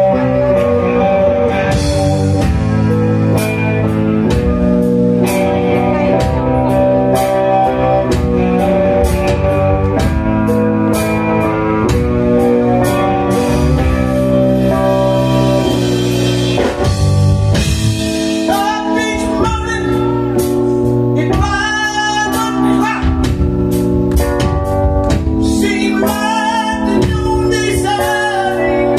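Live rock band playing: electric guitar, drum kit and keyboards with a steady beat. About two-thirds of the way in, a male voice comes in singing over the band.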